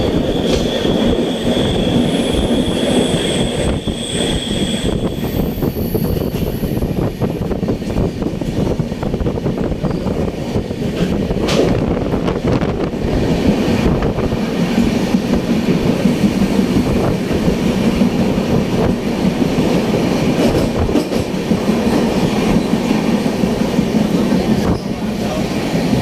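A moving train: a steady, loud rumble with a few sharp clicks along the way.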